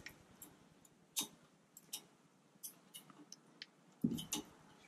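Brake pad and its metal spring clips being fitted into the front brake caliper bracket: scattered light metallic clicks and taps, with a louder pair of knocks near the end.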